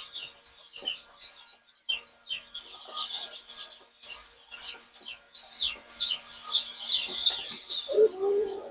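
A crowd of young chicks peeping: many short, high chirps that fall in pitch, overlapping and busiest in the second half. A single lower call comes near the end.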